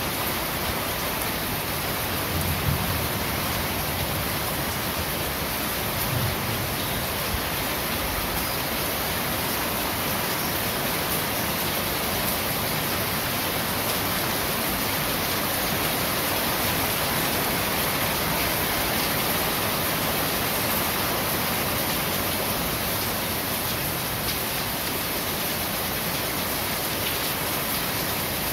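Steady heavy rain falling on a corrugated roof and the surroundings, an even, dense hiss. A couple of soft low thumps come through about 3 and 6 seconds in.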